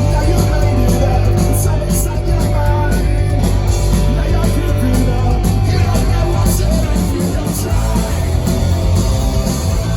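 Punk rock band playing loud and live: distorted electric guitars over bass and drums.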